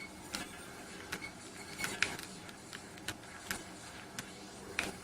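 Plastic button and D-pad clicks of a Matricom G-Pad BX wireless gamepad being pressed during play: about a dozen short, sharp clicks at irregular intervals, a few in quick pairs, over a faint steady hiss.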